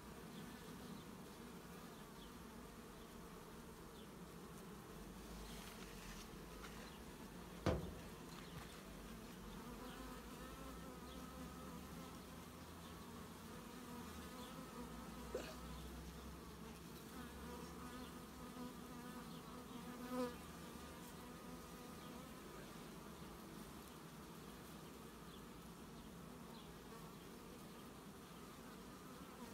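Many Carpathian honeybees buzzing around an open hive, a steady, even hum. A sharp knock comes about eight seconds in, with two fainter ones later.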